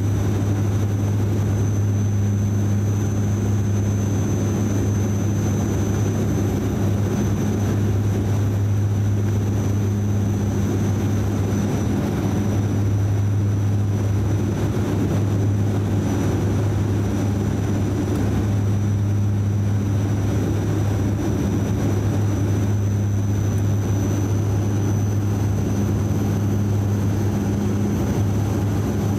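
Cabin noise of a DHC8-400 (Dash 8 Q400) turboprop on final approach: the propellers' steady deep drone, with a thin high whine and a rush of airflow beneath it.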